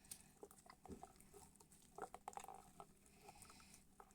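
Faint, scattered little clicks and squishes of sticky slime being pulled out of its container and handled, a cluster of them about two seconds in.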